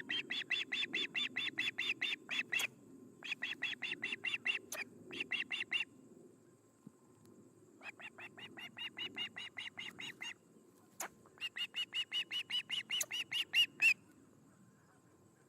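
Osprey calling: runs of rapid, high, whistled chirps, about five a second, in five bursts, stopping near the end. A single sharp click comes about 11 seconds in, over a steady low rumble.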